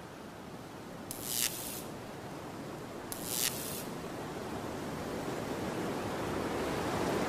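Water spraying: a steady rushing hiss that slowly grows louder, with two short sharp sprays, one about a second in and one about three seconds in.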